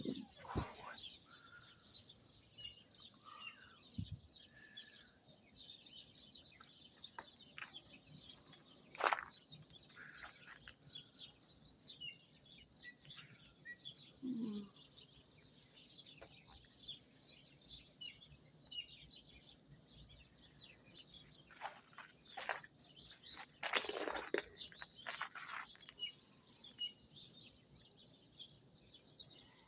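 Many small birds chirping, a continuous faint chatter of short, high chirps. A few sharp cracks or crunches break in, the loudest about nine seconds in and a cluster around twenty-four seconds.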